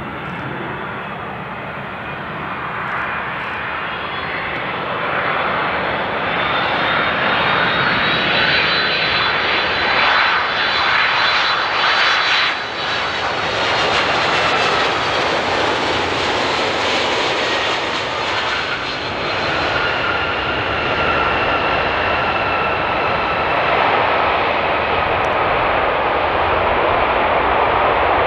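A Boeing 767-300F freighter's twin GE CF6-80C2 turbofans on landing. The jet noise grows louder with a high whine as it passes low in the flare. After it passes, the whine drops in pitch and the engines stay loud through touchdown and the roll-out.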